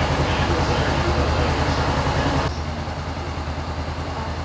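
Honda CB500X's parallel-twin engine idling steadily on its first run after an oil and filter change, while it is checked for leaks. The sound drops abruptly in level about two and a half seconds in, then the idle carries on.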